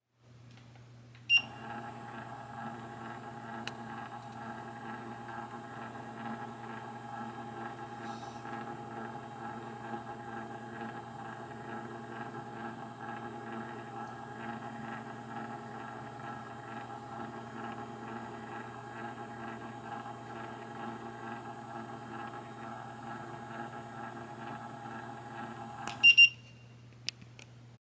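A steady electric hum made of several fixed tones, starting with a click just over a second in and stopping with a click near the end.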